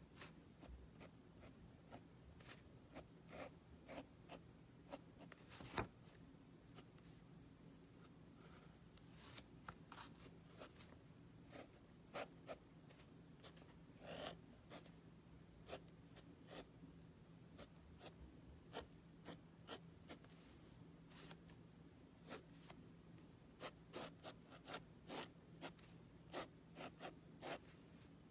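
Faint, irregular scratchy strokes of a drawing tool on paper, sometimes several in quick succession, with a sharper click about six seconds in, over a faint steady low hum.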